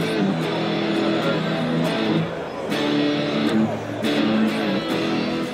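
Electric guitar strumming held chords in a steady rhythm, starting to fade near the end.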